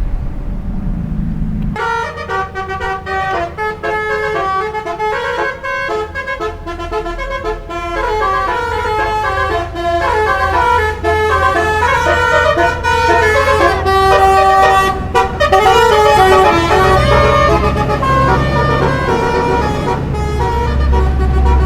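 Bus 'telolet' multi-tone air horn playing a quick stepping tune of several notes at once. It starts about two seconds in and keeps going over a low vehicle rumble.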